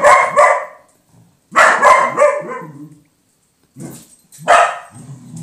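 Dog barking in loud, sharp barks at a cat: two at the start, a quick run of three about a second and a half in, and one more near the end. A low growl follows right after that last bark.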